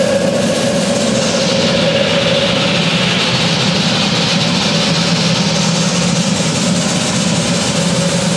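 Live electronic noise music: a loud, steady drone of a low hum and a higher hum beneath a dense hiss. The hiss opens up sharply at the very start and swells in the upper range through the middle.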